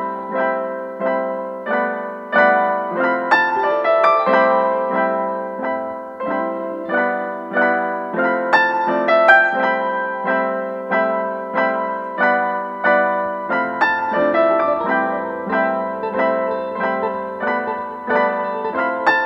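Background piano music: a steady run of struck notes, each fading away.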